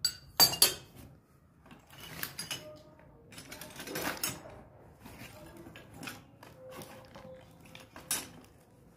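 Metal hand tools being handled and set down on a hard floor. Two sharp clicks come about half a second in, followed by scattered light rattles and scrapes and one more click near the end.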